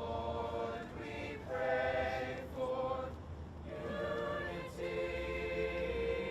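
High school choir singing, long held notes in phrases with short breaks between them.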